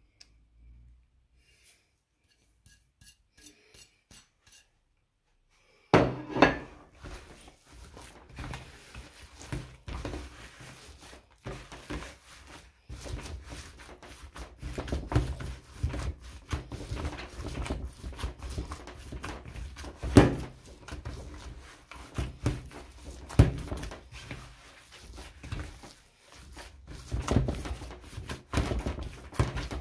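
Minced meat being kneaded by hand with spices in a bowl: irregular wet squishing and slapping, with the bowl knocking against the table in a few louder thumps. It starts about six seconds in, after a nearly quiet stretch.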